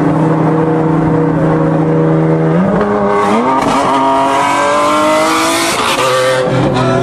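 A steady engine drone, then from about two and a half seconds in a Ferrari Enzo's V12 accelerates hard alongside, its pitch climbing steadily with a rising high wail. The revs fall sharply near the end.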